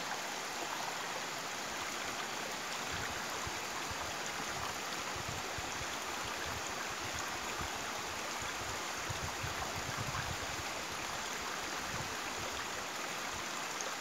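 Shallow rocky forest stream running over stones: a steady, even rush of water.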